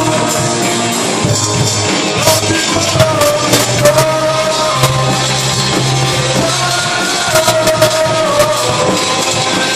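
Live rock band playing: electric guitar, bass guitar and drum kit, with long held, wavering notes over the top and frequent sharp drum hits.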